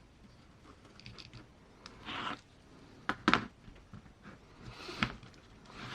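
Hands working on a small RC crawler's chassis: scattered light plastic clicks and rustles as wiring is tucked away. There is a rustle about two seconds in, a couple of sharp clicks a little after three seconds, and another rustle with a click near five seconds.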